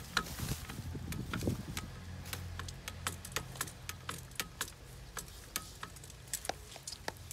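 Hand-operated grease gun being pumped into the grease fitting on an excavator's bucket linkage pin: a run of sharp, irregular clicks, about three a second.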